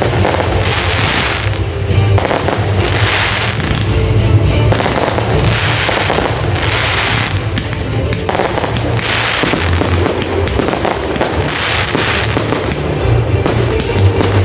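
Fireworks going off, a run of bursts about every two seconds, over music with a steady bass line.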